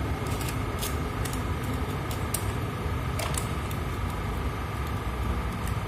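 Steady low background rumble with a faint steady high whine, and scattered faint small clicks of a screwdriver and wires being worked into a digital temperature controller's screw terminals.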